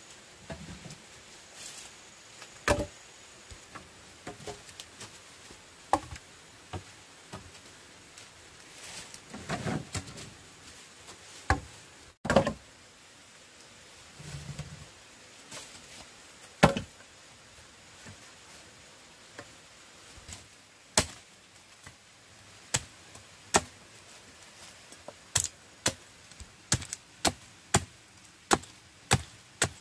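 Repeated sharp chopping or knocking strikes, irregular and spaced out at first, then a quicker, steadier run of about two strikes a second near the end.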